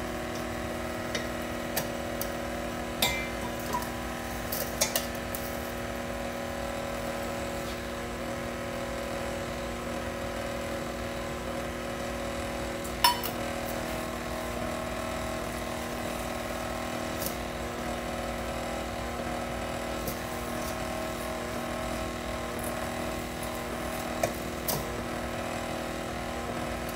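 Stand mixer motor running steadily on its low stir speed as it mixes cake batter, with a few sharp metallic clinks of a measuring cup scooping in a stainless steel bowl, the loudest about halfway through.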